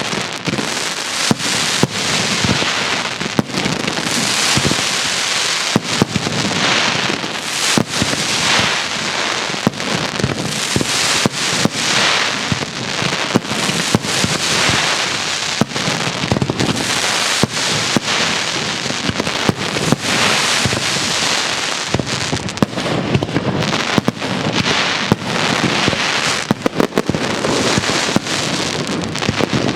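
Castillo aerial fireworks display: a dense, continuous crackle of bursting effects, with frequent sharp bangs from exploding shells.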